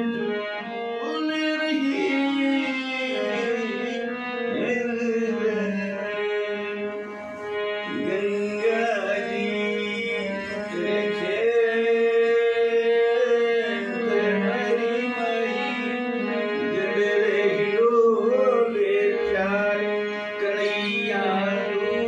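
A harmonium playing sustained reed chords, with a man singing a devotional-style melody over it in several phrases.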